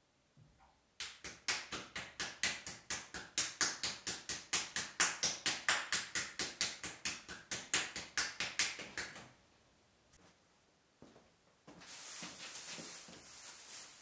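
Hands patting and slapping a small ball of clay between the palms, a fast even run of about five slaps a second for some eight seconds, shaping it into a ball for throwing. A steady hiss follows near the end.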